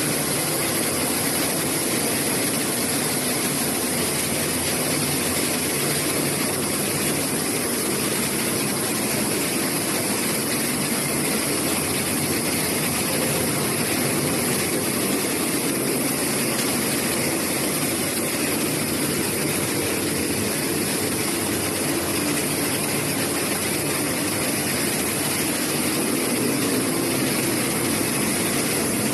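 Flour milling machinery running steadily: a dense, constant mechanical hum and hiss with no breaks or changes.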